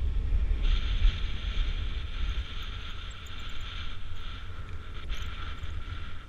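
Wind buffeting the microphone in flight: a heavy low rumble, strongest in the first couple of seconds, with a steady higher hiss joining in about a second in.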